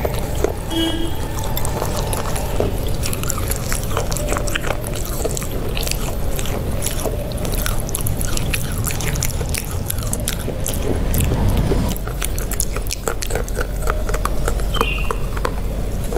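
Close-miked ASMR eating sounds: crunchy chewing and wet mouth clicks in a dense, irregular run, over a steady low hum.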